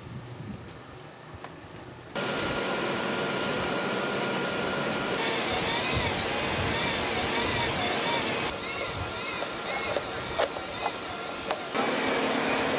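Wind buffeting the microphone. Then, with an abrupt cut about two seconds in, a fire engine's rear-mounted water pump runs with a loud steady drone while feeding hoses. A wavering high tone rides over it for a few seconds in the middle.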